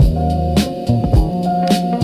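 Background music with a steady funk-style beat: drum kit, bass and guitar.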